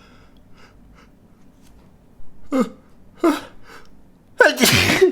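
A man's sneeze: after faint breathing, two sharp gasping in-breaths with a falling pitch, then a loud, explosive sneeze near the end.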